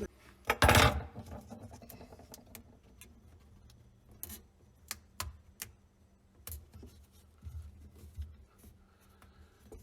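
Drain saddle and its sponge gasket being handled and fitted onto a drain pipe: a brief louder scrape about half a second in, then scattered light clicks and a few low knocks.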